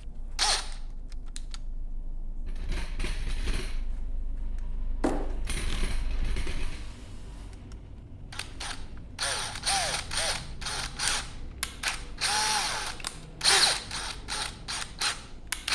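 Power drill on its lowest setting driving a screw into and out of a threaded hole to clear old threadlocker glue from the thread. It runs for several seconds, then in many short start-stop bursts that rise and fall in pitch.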